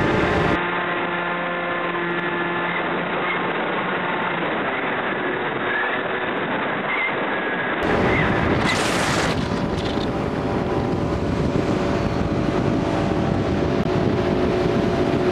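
Hobbyking Bixler RC plane's electric pusher motor and propeller whining steadily, heard thin and tinny through a small camera on the plane's nose. About eight seconds in this gives way to wind buffeting a microphone over a ski boat's engine running, with one strong gust just after the change.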